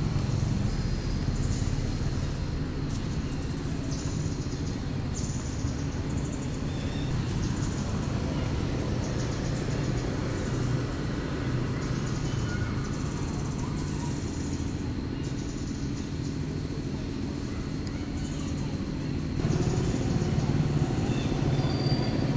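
Outdoor background noise: a steady low rumble with short high buzzes recurring about once a second and a faint steady high whine. It grows louder near the end.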